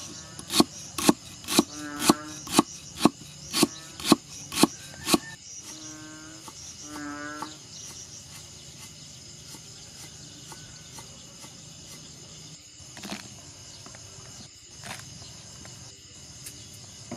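Cleaver chopping lemongrass stalks on a wooden chopping board: about two sharp chops a second for the first five seconds, then stopping. A steady high insect drone runs underneath, with a few short animal calls.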